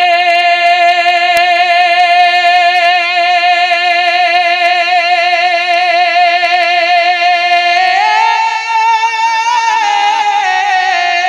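A man singing an Urdu naat unaccompanied, holding one long note with vibrato for about eight seconds, then moving through a short melodic run near the end.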